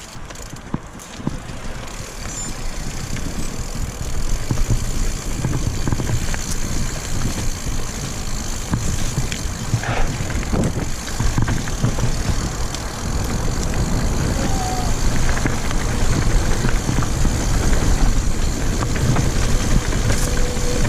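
A mountain bike riding a singletrack trail: wind rushing over the microphone, mixed with tyre noise and knocks and rattles from the bike. It grows louder over the first few seconds, then stays steady.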